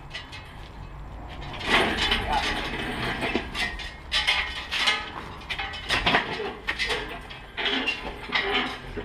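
Engine hoist with a V8 engine hanging from its chains being pushed across a concrete floor: casters rumbling, chains and steel clinking, and irregular clanks, the sharpest about two seconds in and again about six seconds in.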